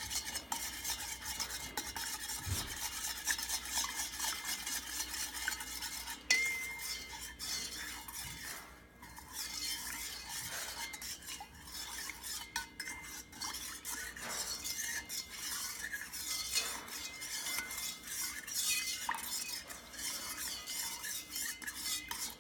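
A spoon stirring borax into water in a mixing bowl, with continuous scraping and clinking against the bowl as the borax is dissolved. The stirring stops right at the end.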